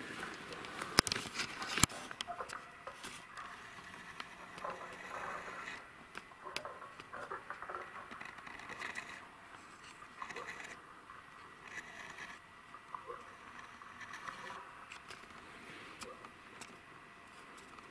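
Handling noise as the camera is swung around, with rustling against dry marsh grass and clothing. Two sharp knocks come about one and two seconds in, then quieter scattered rustles.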